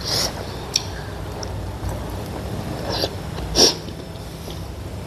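A person eating chicken momo with chilli chutney: chewing mouth sounds and a few short, hissing sucks of air through the mouth, the loudest about three and a half seconds in, as from very spicy food.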